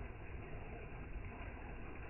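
Water in a shallow stream flowing with a steady rushing noise and a low rumble underneath.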